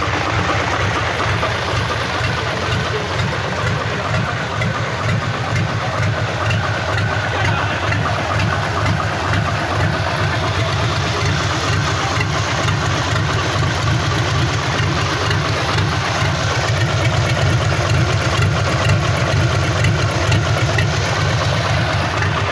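Freshly rebuilt Mitsubishi Fuso D16 diesel engine idling steadily with an even diesel clatter, getting slightly louder for a few seconds near the end.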